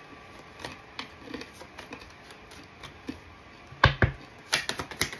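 Tarot deck being handled: a few faint card clicks, then two heavy thumps about four seconds in, followed near the end by a fast run of clicking as the cards are shuffled.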